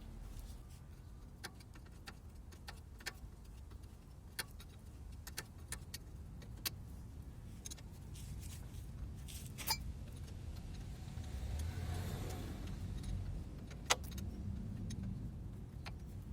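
Car running and moving, heard from inside: a steady low rumble with scattered small clicks and jingling rattles, swelling louder about twelve seconds in.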